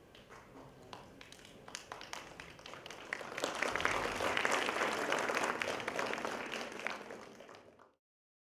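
Audience applauding, starting as scattered claps and swelling to full applause a few seconds in, then dying away before the sound cuts off abruptly near the end.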